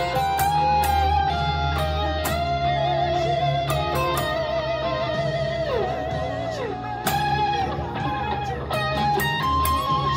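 Electric lead guitar from a Stratocaster-style guitar, played through monitor speakers and recorded on a phone. The notes are long and held, with wide vibrato. A couple of string bends slide down near the middle.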